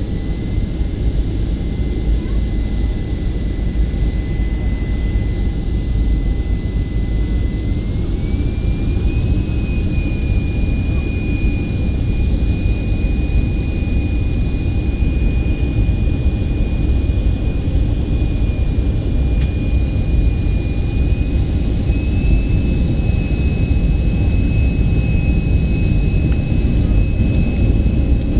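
Boeing 737-400 cabin noise in flight: a steady rumble of engines and airflow, with a thin whine from the CFM56 jet engines. The whine steps up in pitch twice, about a third of the way in and again past the middle, as engine thrust is increased on the approach.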